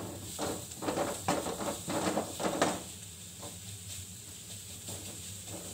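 Wooden spatula stirring and scraping a thick masala mixture in an aluminium kadai: a quick run of scraping strokes for about two and a half seconds, then only a few faint strokes.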